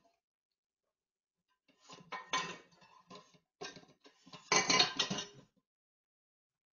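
Dishes and cutlery clinking and clattering in a stainless-steel kitchen sink as a dog noses through them, in several bursts, loudest about four and a half seconds in.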